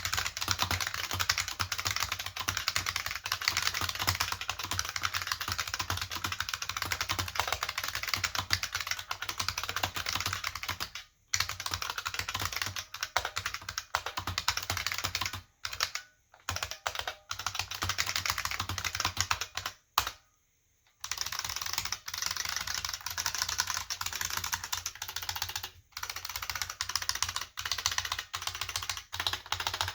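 Continuous fast typing on an IBM 5155 keyboard with capacitive buckling-spring switches and PBT keycaps: a dense clatter of key clicks. It breaks off a few times, the longest pause about a second, some two-thirds of the way in.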